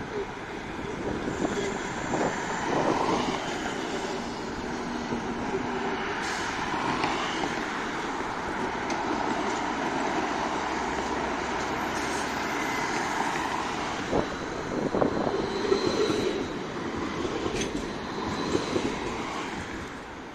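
Street traffic on a busy road: cars driving past at speed and a modern low-floor tram running on its tracks, with a few faint high-pitched squeals.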